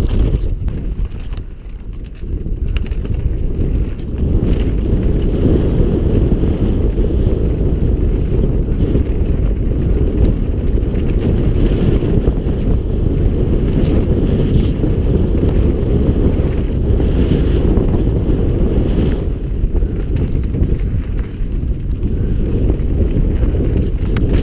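Wind buffeting an action camera's microphone on a mountain bike descending a dirt trail, with tyre noise and scattered knocks and rattles from the bike over rough ground. It eases off briefly about two seconds in.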